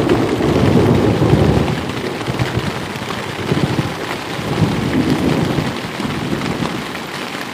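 Heavy rain pouring down, a steady dense hiss, under a low rumble that is loudest for the first two seconds and swells briefly twice more before easing.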